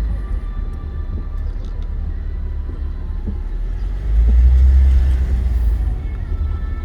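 Low, steady rumble of a car driving on the road, swelling louder for a couple of seconds about four seconds in.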